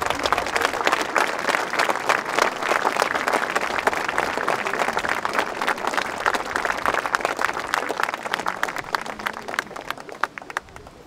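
Large crowd applauding steadily, the clapping thinning and dying away near the end.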